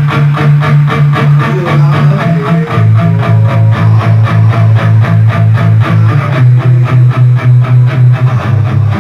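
Electric guitar and bass guitar played loud through a stage PA in a rock band sound check, the bass pulsing a fast even rhythm whose note changes three times.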